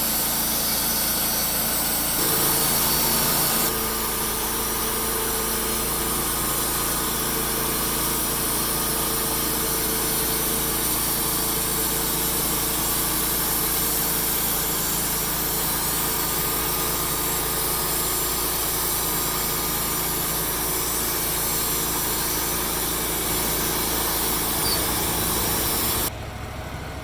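Engine of a portable bandsaw sawmill running steadily while the band blade saws through a log. The sound changes abruptly about a second before the end.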